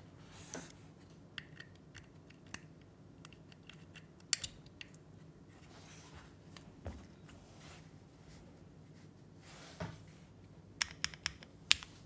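Handling noises from a red aluminium Unikorn mechanical keyboard as its USB cable is plugged in and the case is set in place on a cloth desk mat: scattered light clicks and knocks with a couple of short rustling sweeps. A quick cluster of sharp clicks comes near the end.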